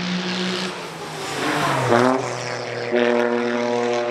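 Toyota GR Yaris race car's turbocharged three-cylinder engine going past trackside. The steady engine note falls in pitch about two seconds in, then the engine pulls again on a steady note from about three seconds in.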